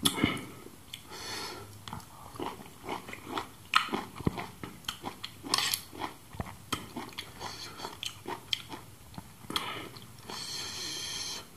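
A person eating close to the microphone: wet chewing and lip-smacking clicks, with fingers working food in a small steel plate. A longer hiss comes about a second in and again near the end.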